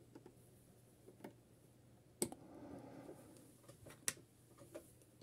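Plastic LEGO pieces clicking and tapping as set-number tiles are moved on a brick-built ranking board, with two sharper clicks about two and four seconds in, over a faint steady hum.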